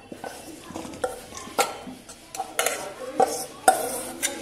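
Stainless-steel bowls knocking and scraping against each other at irregular moments as soaked fenugreek paste is scooped by hand from one into the other.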